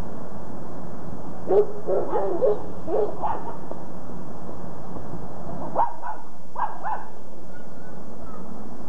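A dog yipping and barking in two short bouts, the first about a second and a half in and the second near six seconds, over a steady background hiss.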